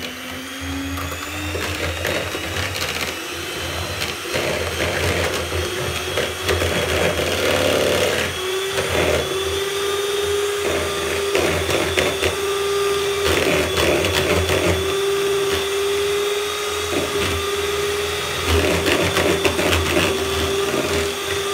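Handheld electric mixer whipping egg whites in a plastic bowl: a steady motor whine with irregular rattling from the beaters in the bowl. The motor's pitch steps up a little about eight seconds in.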